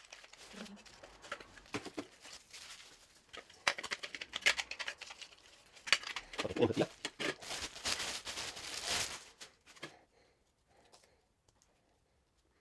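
Hard plastic clicking and knocking as the blue spool flanges for a photo printer's paper roll are handled and set down. This is followed by a longer stretch of crinkling and tearing as the plastic wrapping is pulled off the paper roll, which stops a few seconds before the end.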